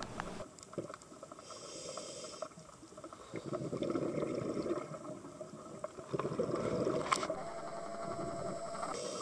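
Muffled water noise picked up by a camera underwater: an uneven sloshing and bubbling hiss with scattered small clicks.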